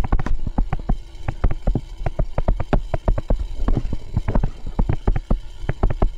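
Stylus tapping and clicking against a tablet screen while handwriting: a rapid, irregular run of sharp clicks, several a second.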